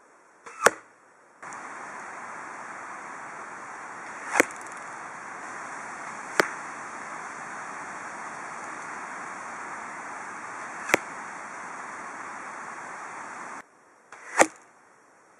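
Arrows striking 3D foam animal targets: five sharp hits spaced a few seconds apart, over a steady hiss.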